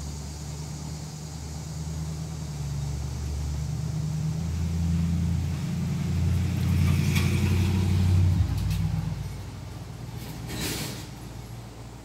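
Low engine rumble that grows louder, then cuts off sharply about eight seconds in. A short hiss comes about seven seconds in and another near eleven seconds.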